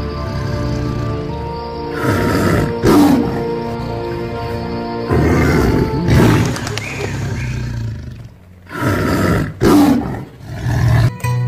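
A tiger roars three times, in long surges about three seconds apart, over a sustained background music bed. Plucked string music starts near the end.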